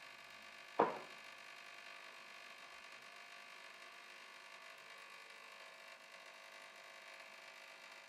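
Capsule coffee machine brewing a large cup, its pump running with a steady buzzing hum as coffee pours into the mug. A single sharp click sounds about a second in.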